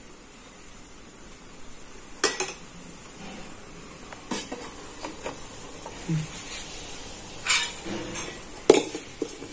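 Aluminium idli plates and an aluminium steamer pot clinking and clanking as batter-filled plates are handled and set into the steamer, with a steel spoon knocking against the metal. There are a handful of sharp metal clinks spread through, the loudest near the end.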